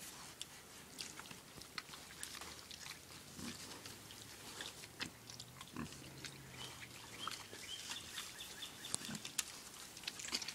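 Young hogs grunting now and then, a few short low grunts, among scattered sharp clicks and rustles of the animals moving about.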